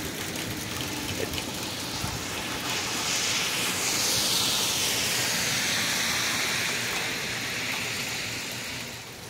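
Steady rain falling. In the middle, a car drives past on the soaked road, its tyres hissing through the water, swelling and then fading away.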